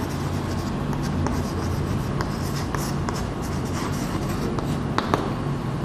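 Chalk writing on a blackboard: a run of short scratching strokes, with a few sharp taps of the chalk near the end.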